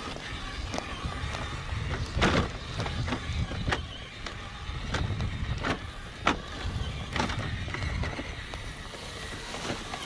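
Element RC Enduro Knightrunner 1/10-scale electric crawler driving over bare rock: a steady rough running noise with irregular sharp clicks and knocks as its tires and chassis meet the stone, the loudest knock about two seconds in.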